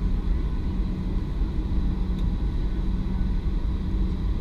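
Boeing 737-800's CFM56-7B turbofans at low taxi thrust, heard inside the cabin as a steady low rumble with a faint steady whine above it, as the jet taxis onto the runway.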